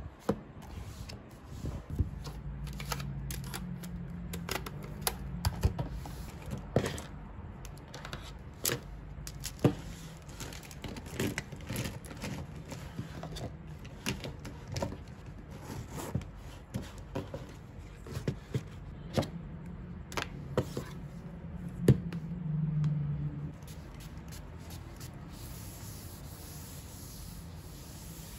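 Pens, markers and small items being handled and dropped into a fabric pencil pouch on a desk: a run of small clicks, taps and knocks. Over the last few seconds a steady rubbing as a tissue wipes across the desk top.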